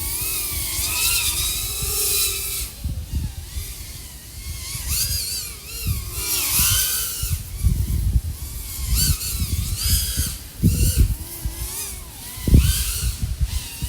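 A 3.5-inch FPV quadcopter's brushless motors and propellers (iFlight AOS 3.5 V5, XING 1504 3100KV motors) whining, the pitch sweeping up and down in swells as the throttle changes, with short bursts of low rumble.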